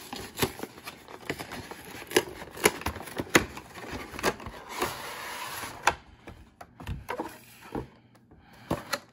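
Cardboard and clear plastic packaging of a Pokémon card collection box being opened and handled: a run of sharp clicks, taps and scrapes, with a longer sliding scrape about five seconds in. After that come a few quieter knocks.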